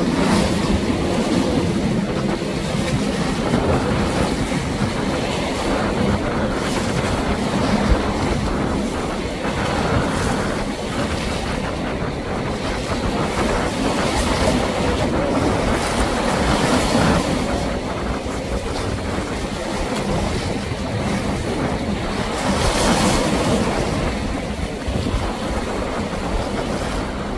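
Wind buffeting the microphone over the rush of waves and wake, with the low steady drone of a large motor yacht's engines as it powers out through choppy water.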